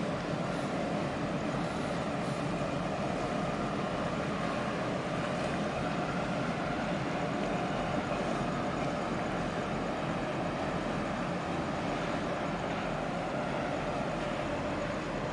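Steady rumble and hum of a large container ship's machinery as the vessel passes close by.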